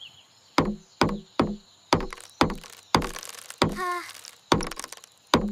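Hammer knocking on wood about ten times at an uneven pace, each blow with a short ringing tail, as a cartoon building sound effect. A brief pitched call sounds once just before the four-second mark.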